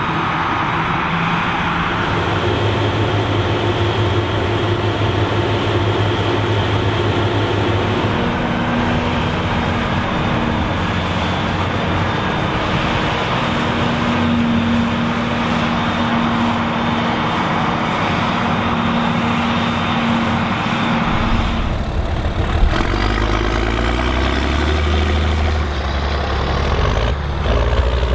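Heavy farm tractor diesel engines running hard under load. The engine note steps to a different pitch about a third of the way through, and the sound changes to a deeper engine rumble late on.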